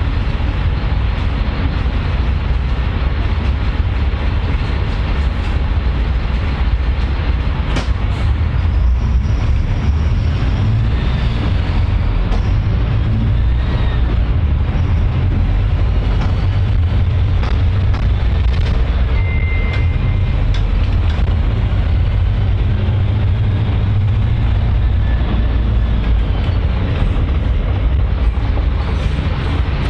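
A public transport vehicle running, with a steady, loud low rumble. There are a few faint clicks and a short high tone a little past halfway.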